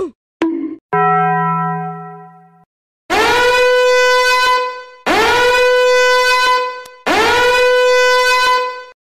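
Three long, loud horn blasts on the same note, each about two seconds, starting with a quick upward scoop in pitch. Before them come a short falling sound, a brief blip and a steady tone that fades away over about a second and a half.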